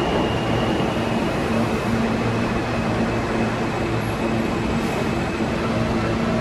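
Train running steadily: a constant mechanical noise with a steady low hum and a faint high whine over it.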